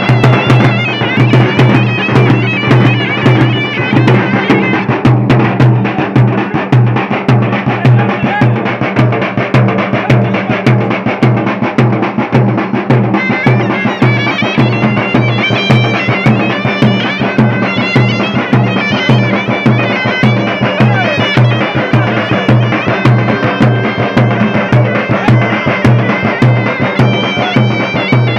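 Southern Tunisian folk music: a zokra (double-reed shawm) playing a shrill, reedy melody over large double-headed tbal drums beaten with sticks in a steady, driving rhythm.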